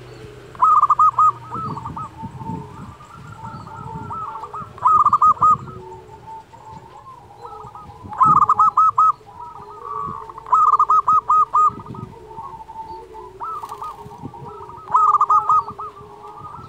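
Zebra dove (perkutut) cooing: five loud phrases of rapid staccato notes, a few seconds apart, with softer cooing between them.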